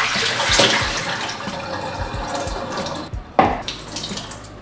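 Kitchen tap running water into a sink while cut baby potatoes are rinsed, with one sharp knock about three and a half seconds in.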